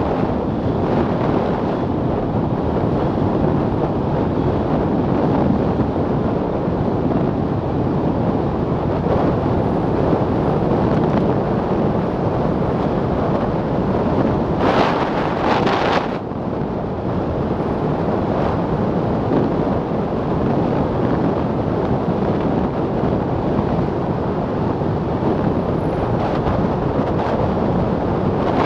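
Steady wind noise on the microphone of a camera riding on an open-top Milan Mk4 velomobile at about 60 km/h on asphalt. About halfway through, a brighter, hissier rush lasts about a second and a half.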